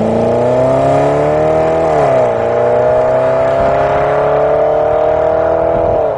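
BMW E31 8 Series (840i) V8 accelerating hard away, engine note climbing, with an upshift about two seconds in that drops the pitch before it climbs again through the next gear.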